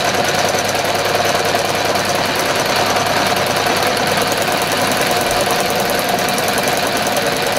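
Domestic electric sewing machine running at a steady high speed during free-motion stitching: a rapid, even chatter of needle strokes over a constant motor hum.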